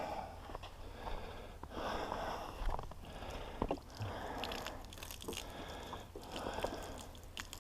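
A person breathing hard close to the microphone, slow even breaths about every two seconds, with a few light knocks and clicks.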